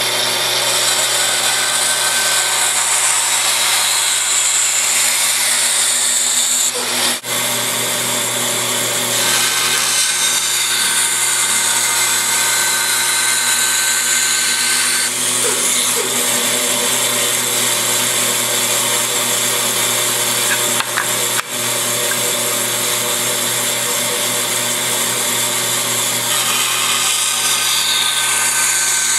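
Band saw running steadily, a motor hum under the hiss of the blade, as wood is cut on the saw. The sound dips briefly twice.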